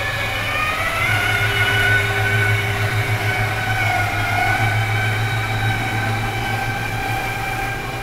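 Electric drive of a motorhome's entertainment slide-out room running as the room extends: a steady low drone with a whine on top that rises a little about a second in, cutting off near the end as the slide reaches full out.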